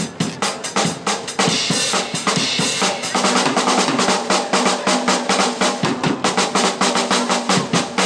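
A drum kit played fast by a street drummer, with a wash of cymbals from about a second and a half in and then a rapid, steady beat of strokes.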